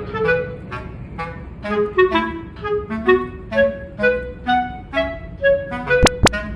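Instrumental background music: a woodwind melody, clarinet-like, of short, separate notes. Two sharp clicks come close together near the end.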